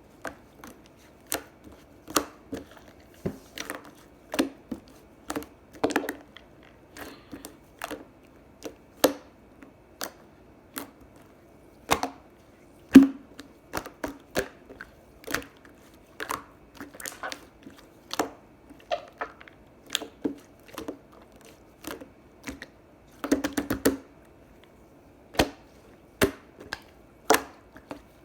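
Hands pressing and poking a soft, squishy melon pudding slime, making irregular sharp clicks and pops about one or two a second, with a quick flurry of them near the end.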